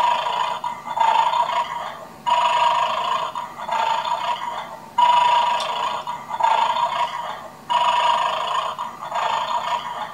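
Battery-powered toy dog from the Bad Dog game playing its recorded snoring through a small speaker. The snores repeat in a steady cycle about every two and a half seconds, each in two parts, while the dog is asleep and has not yet woken to bark.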